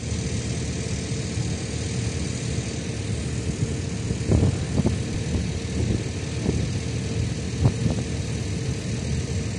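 Steady drone of heavy diesel machinery running, with a constant hum, from excavators working the excavation. A few dull knocks come in the middle.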